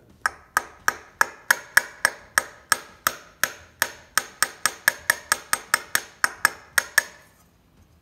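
Ball-peen hammer tapping steel, about four quick ringing strikes a second for about seven seconds, then stopping. The hammer is knocking a turn-signal bulb socket back out a little.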